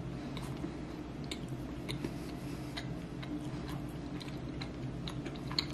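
A person chewing a mouthful of Darrell Lea Rocklea Road chocolate, milk chocolate with marshmallow and crunchy peanut, with the mouth closed: faint, irregular small clicks and crunches over a low room hum.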